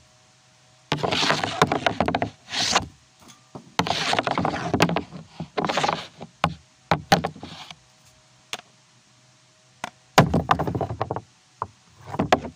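Hockey stick blade scraping and clacking against a puck on a shooting board during stickhandling and shots, in several bursts about a second long, with single sharp clacks between them.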